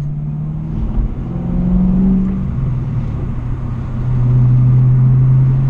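Straight-piped V8 exhaust of a 2008 Roush Blackjack Mustang (mufflers removed, stock catalytic converters kept) on the move, heard from inside the car: a steady drone that rises in pitch about a second and a half in, drops back, then grows louder near the end.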